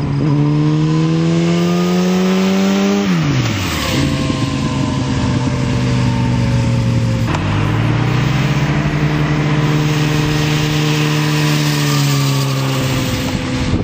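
Yamaha inline-four motorcycle with an Akrapovic slip-on exhaust accelerating: revs climb for about three seconds, drop quickly at an upshift, then hold a steady, slowly falling note as it rides past.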